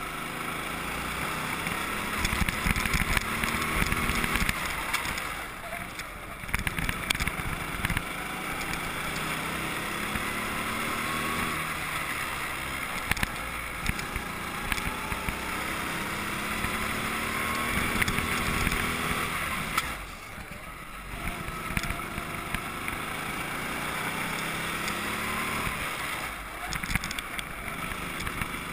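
Go-kart engine heard from on board at speed, its pitch rising repeatedly as it revs up, with three brief drops in the engine sound as it comes off the throttle.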